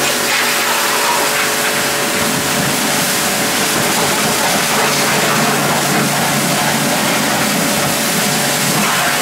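Ruris Pro Power Jet 1900 pressure washer running steadily, its induction motor and pump humming under the hiss of the water jet from the metal lance.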